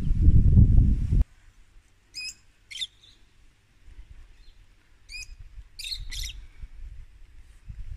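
Loud low rumbling noise that cuts off abruptly about a second in, followed by birds chirping in short, sharp calls, several times in pairs, over a quiet background.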